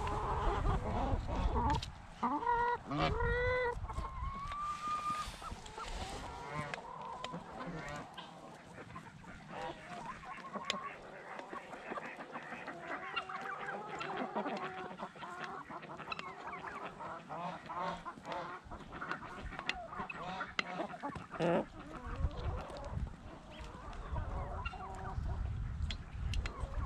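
A flock of chickens feeding at close range: clucking and squawking calls, a few drawn-out honk-like ones a few seconds in, over many quick pecks tapping on the pan of food.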